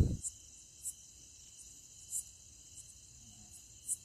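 Crickets chirring steadily in a thin high trill, with a few short, sharper chirps standing out.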